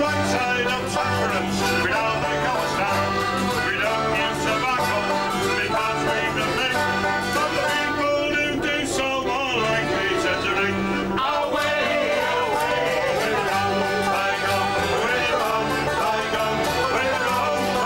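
Acoustic folk band playing a tune together: plucked banjo and strummed acoustic guitar with a button accordion, over a bass line of held low notes.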